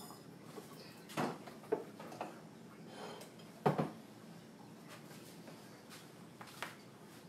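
Kitchen items being handled and set down on a counter: a few scattered knocks and clunks, the loudest about halfway through.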